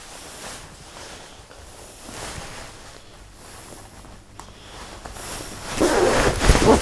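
Jacket zip being done up and clothing rustling against a clip-on microphone, quieter at first with a single click partway through, then louder rustling and handling bumps near the end.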